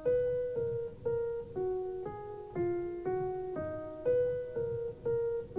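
Music: a simple keyboard melody of single notes, about two a second, each struck and then fading.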